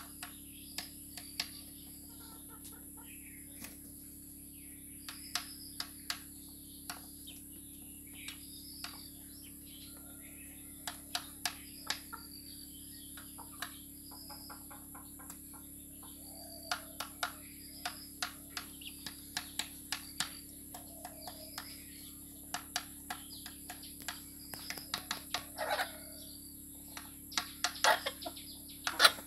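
Chickens pecking rice from a bowl and the ground: irregular sharp taps of beaks on the bowl, coming faster and louder in the second half. Short high chirps and a few low clucks come in between.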